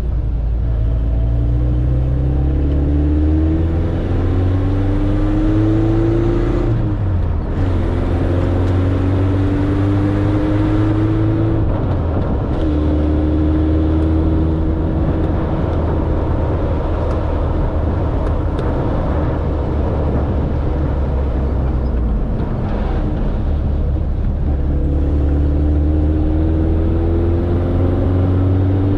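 Suzuki Samurai's four-cylinder engine pulling under way, its pitch rising through the gears and dropping at each shift, then holding steady at cruising speed before climbing again near the end.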